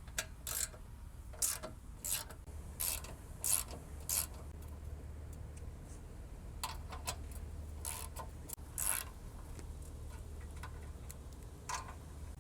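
A ratchet wrench clicking in short irregular spurts while loosening 1/2-inch nuts on a mower's body panel, with a faint low hum underneath.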